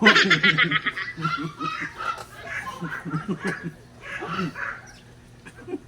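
A person laughing in a quick run of short bursts, high and rapid at first, then in looser, lower bursts that die away near the end.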